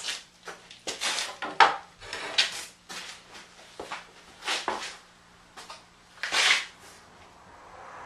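Cut lengths of 2x4 lumber being handled and set down, knocking and clattering in a run of irregular wooden knocks, the loudest about a second and a half in. A faint steady hum lies underneath.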